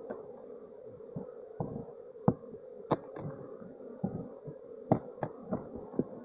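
Honeybee swarm buzzing in a steady hum, with several short sharp clicks and knocks over it, the loudest a little over two seconds in and just before five seconds.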